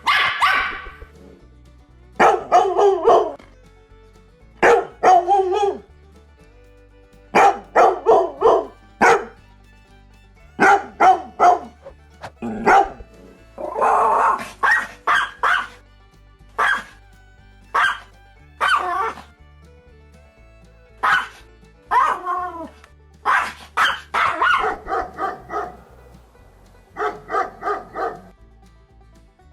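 Dog barking repeatedly in short runs of two to five barks with pauses between, over a steady background music bed.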